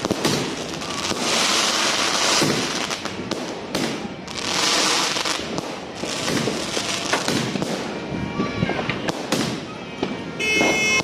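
Aerial fireworks going off in a rapid, irregular series of bangs, with swells of crackling from crackle shells.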